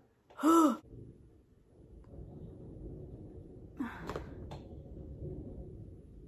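Distant thunder: a low rumble that builds about a second in and rolls on for about five seconds.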